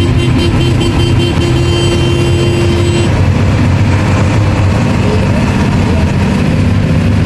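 Converted bus engine running steadily under way, a low drone with road noise heard inside the cab.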